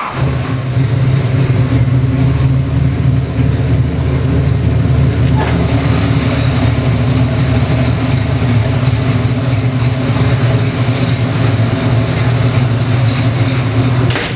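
Chevy 427 cubic-inch small-block stroker V8 with FiTech fuel injection, running on an engine dyno. It catches right at the start and settles into a steady idle at about 1,100 rpm.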